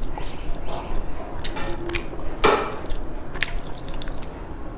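Close-miked biting and chewing of a crumbly pastry: scattered crisp crunches, the loudest about halfway through.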